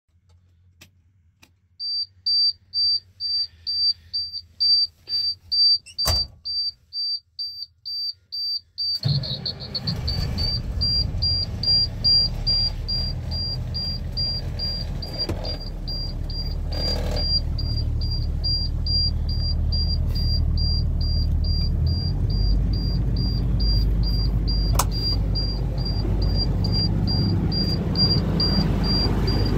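A dash warning buzzer beeps about twice a second. About nine seconds in, the International 4900's 300 hp diesel fires almost at once on a cold start, with no block heater, glow plugs or grid heater, and settles into a steady idle with the buzzer still beeping over it. The engine grows a little louder in the second half.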